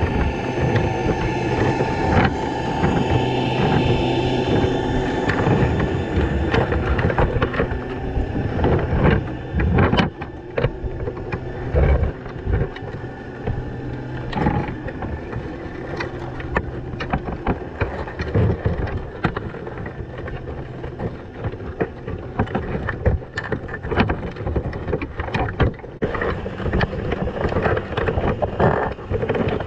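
Underwater sound from inside a crab pot: frequent sharp clicks and knocks over a constant rushing noise as crabs clamber over the wire mesh and the camera housing. A steady low hum sounds under it, strongest in the first several seconds.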